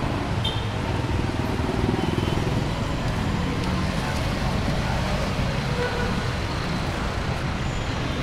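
Steady city street traffic: the engines of passing cars and motorcycles with a continuous low rumble.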